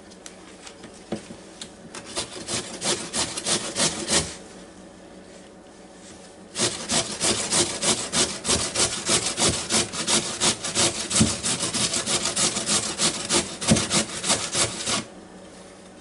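Raw potato being grated by hand on an old metal box grater: rhythmic rasping strokes, a short run about two seconds in, then after a pause a longer run that stops near the end.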